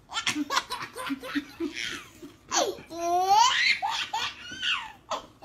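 A baby laughing in a run of short bursts, then a longer laugh that rises and falls in pitch about three seconds in.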